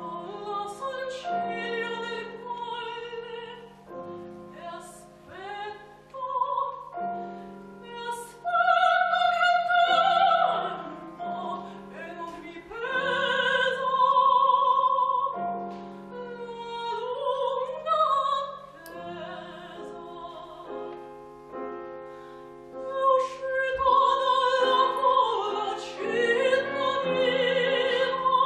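Operatic soprano singing with piano accompaniment, her held notes carrying a wide vibrato.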